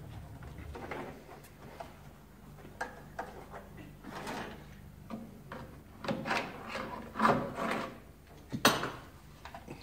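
Irregular scraping and rubbing strokes from hand work in a car's door opening. The strokes grow louder about two thirds of the way in, with a sharp knock near the end.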